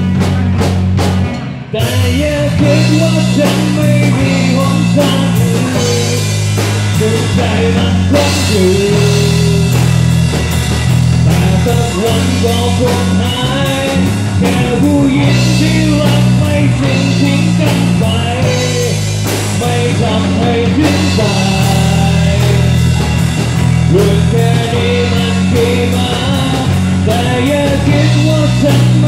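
A live rock band rehearsing: drum kit and electric guitars playing together, with a short drop in level and drum hits about a second and a half in before the full band comes back in.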